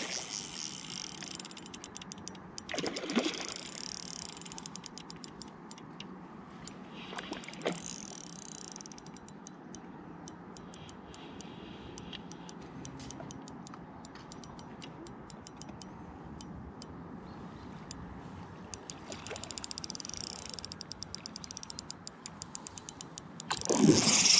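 Ultralight spinning reel's drag clicking in rapid ticks as a hooked trout runs and takes line. It comes in a few louder surges, the strongest right at the end.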